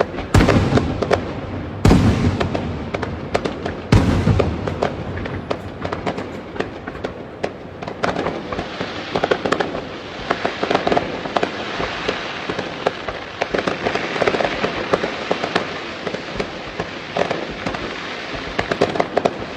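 Fireworks display. Three heavy booms in the first four seconds, each with a rumbling tail, then a dense, continuous run of crackling pops and smaller bangs.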